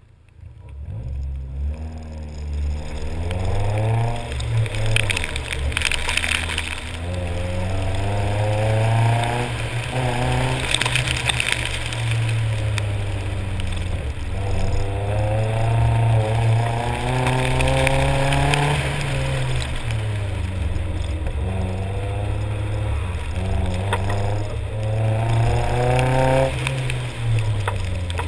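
Nissan 240SX (S13) KA24 four-cylinder engine heard from inside the car on an autocross run, starting off about a second in and then revving up and dropping back again and again, its pitch rising and falling. Occasional short bursts of hiss ride over the engine.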